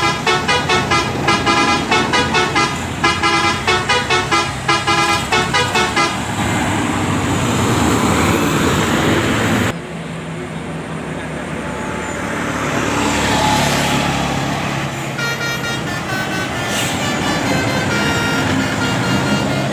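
Telolet multi-tone bus air horn playing a quick melody of short notes, about three a second, for the first six seconds, then engine and traffic noise. Near the end the horn plays another tune of longer held notes.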